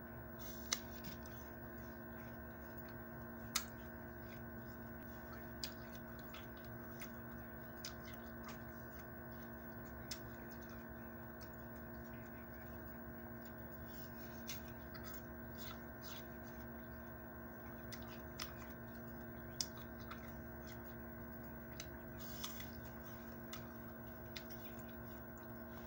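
Irregular sharp mouth clicks and smacks of someone eating fruit slices, over a steady faint hum.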